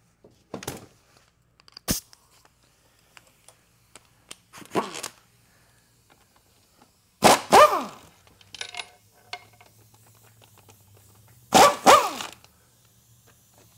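A dog barking several times in short outbursts, the loudest two coming as quick double barks about halfway through and near the end. A sharp metallic click sounds about two seconds in.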